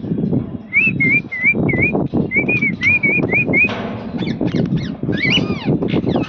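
Cockatiel whistling a run of about ten short, wavy notes in quick succession, followed by a few sharper rising calls near the end, over a steady low rumbling noise.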